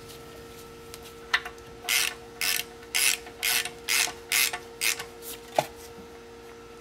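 Hand ratchet clicking through a run of about eight short strokes, roughly two a second, as it turns in the small screw that holds a brake rotor to the hub. It is being run in only to hand tightness.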